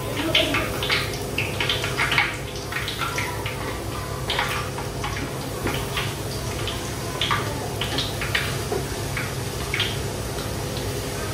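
Peyek (Indonesian rempeyek cracker) batter frying in a wok of hot oil: steady sizzling with many irregular crackles and pops as spoonfuls of batter go into the oil.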